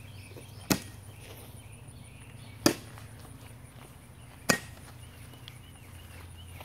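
Baseball bat striking a Coke bottle lying on the grass, three sharp hits about two seconds apart.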